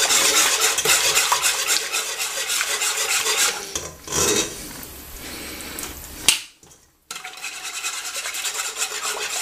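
Wire whisk beating a thick cream sauce in a saucepan, rapid scraping strokes against the pan, whisking in egg yolks off the heat. The whisking goes quieter in the middle, with a sharp click about six seconds in and a short gap before it picks up again.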